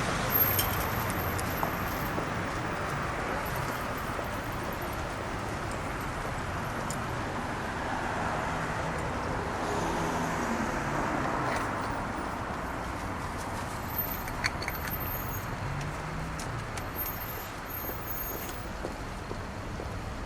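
Steady road traffic noise, with a few faint, very high short tones over it.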